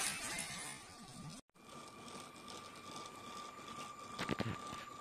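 LEGO Powered Up train motor running with a steady thin whine, and the wheels click over the rail joints of the crossing a few times about four seconds in. Before that, a noisy rustle fades out over the first second and a half.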